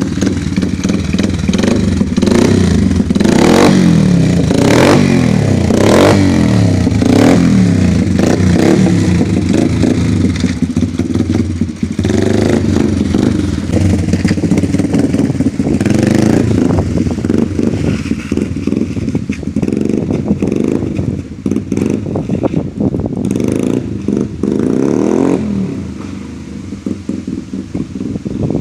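Yamaha TT-R90 dirt bike's small single-cylinder four-stroke engine being ridden, revving up and down repeatedly with some rattling, then quieter near the end.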